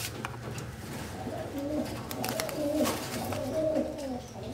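Domestic pigeons cooing in a wire cage: a run of low, wavering coos starting about a second in, with a few sharp clicks.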